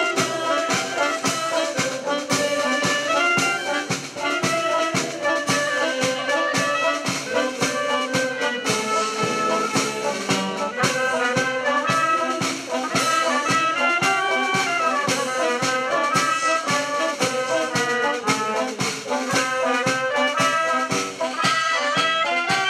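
Brass band playing a tune with a steady beat, trumpets and trombones to the fore.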